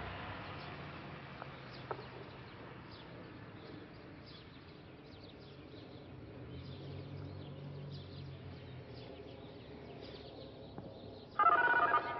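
Outdoor background with small birds chirping over and over. Near the end a sudden loud tone with several pitches sounds for about half a second.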